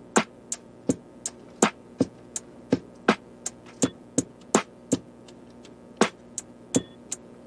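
Background music: a sparse beat of sharp clicks, about three a second, over a low held tone.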